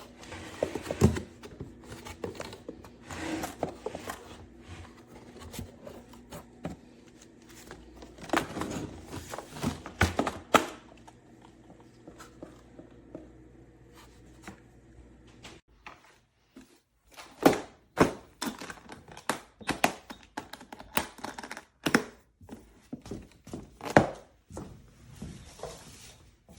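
Hard objects being handled and set down, with irregular knocks, clicks and thuds and a little rustling. The knocks are loudest about a second in and around eight to ten seconds, go quieter in the middle, and come in a busy run of sharp knocks in the second half.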